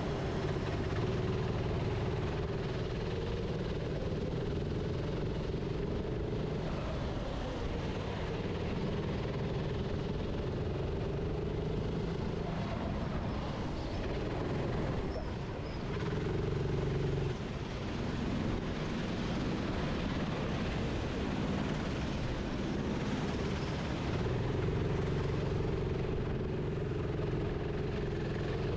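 Racing kart engine heard onboard while lapping, its pitch rising and falling as the kart accelerates and lifts off for corners, with a couple of deeper dips about halfway through.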